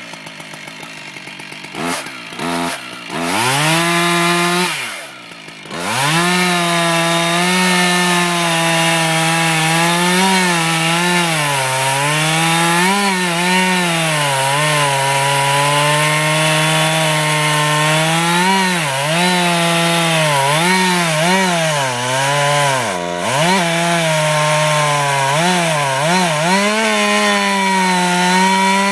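Two-stroke chainsaw idling, then revved briefly a few times. From about six seconds in it runs at full throttle while cutting the felling notch in the tree, its pitch sagging and recovering again and again as the chain loads up in the wood.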